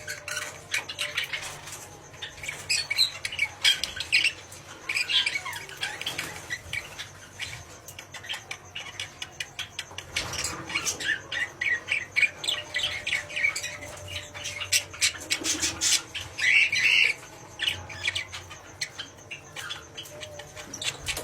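Birds calling, with short squawks and chirps scattered irregularly throughout, among frequent brief clicks and ticks.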